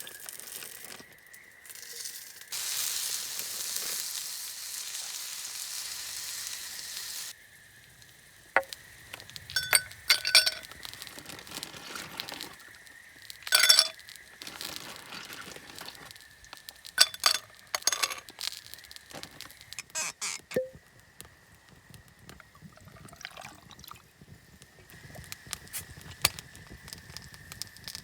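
Camp cookware at work: a steady hiss, like pouring or sizzling, for about four and a half seconds that cuts off suddenly, then scattered clinks and knocks of utensils against metal or glass cookware.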